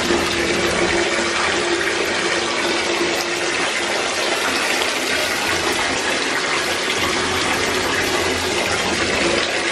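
Tap running into a filling bathtub: a steady rush of water with a faint steady hum under it.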